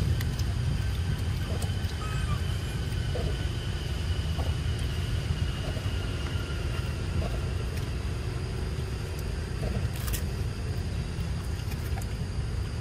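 Steady low outdoor rumble, even in level throughout, with faint thin high tones held above it and a few light ticks.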